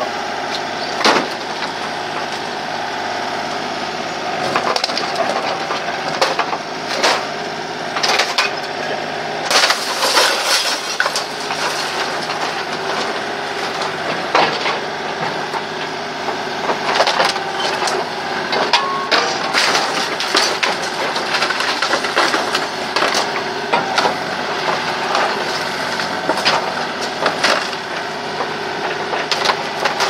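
Kubota mini excavator's engine and hydraulics running steadily while its grapple tears at a wooden house wall, with repeated cracking and splintering of boards and knocks of falling debris, thickest from about ten seconds in.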